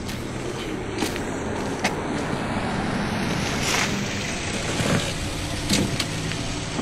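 A car running close by, a steady hum of engine and tyre noise, with a few sharp clicks scattered through it.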